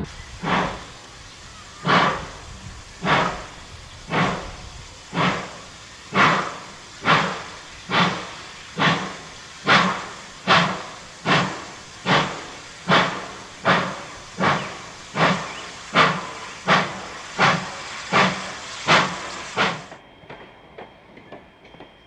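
Steam locomotive exhaust chuffing from a B&O S-1 2-10-2 helper engine getting under way: about two dozen beats, slow at first and gradually quickening. The chuffing cuts off near the end, leaving faint clicking.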